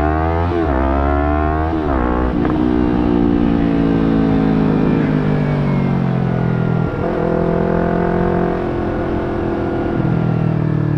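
Yamaha R3 parallel-twin motorcycle engine breathing through an Akrapovic slip-on muffler, accelerating hard with two quick upshifts in the first couple of seconds, then easing off with falling revs, one more shift about seven seconds in, and settling to a steady cruise.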